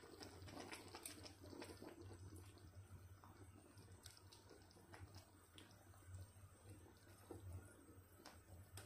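Faint popping and bubbling of chicken broth simmering in a large stainless steel pot, with a ladle stirring through it, over a low steady hum.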